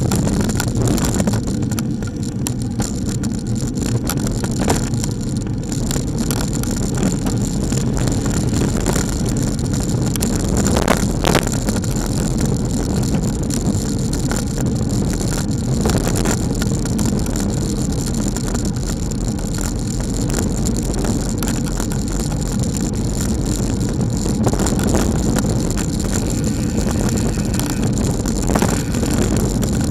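Steady wind and road rumble picked up by a bicycle-mounted camera while riding, with one short knock about eleven seconds in.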